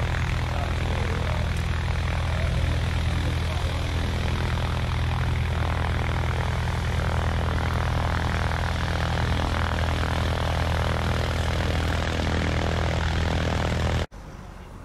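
Military helicopter running on the ground: a loud, steady low drone of engine and rotors that cuts off suddenly near the end.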